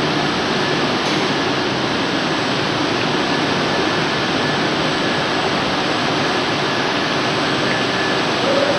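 Steady factory machinery noise in a plastic tubing extrusion plant: an even, constant rush with a faint thin high tone running through it.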